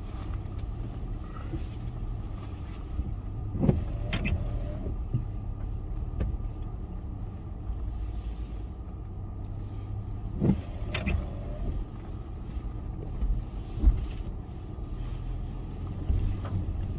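Off-road vehicle driving slowly over a rough track: a steady low engine drone, broken by a few knocks with short squeaks, the loudest about four, ten and a half and fourteen seconds in.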